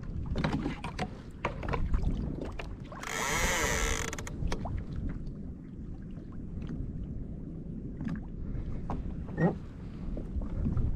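Wind and sea noise around a fishing kayak on open water, with scattered light knocks against the hull and gear. A burst of hiss about three seconds in lasts around a second.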